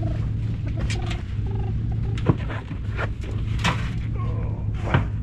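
Knocks, bumps and scraping as a newborn calf is lifted out of a round metal stock tank, with two sharper thumps about two and five seconds in, over a steady low hum.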